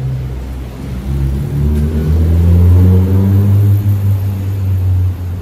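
A road vehicle's engine passing close by, its pitch rising as it accelerates, loudest about halfway through and fading near the end, over a steady low traffic rumble.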